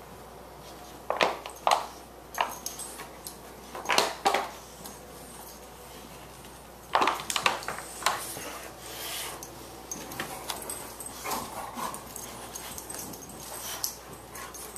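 Two Boxer dogs, a puppy and an adult, play-fighting over a chew toy: short, sharp dog noises and scuffles, bunched about one, four and seven seconds in, with smaller ones between.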